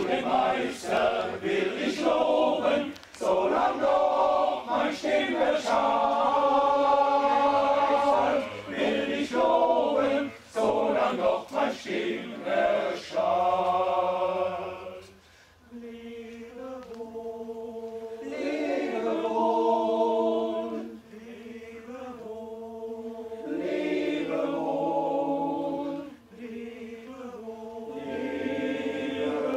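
Choral society singing a cappella, several voices in harmony. The singing is loud in the first half and stops briefly about halfway through. It then resumes more softly, with long-held chords.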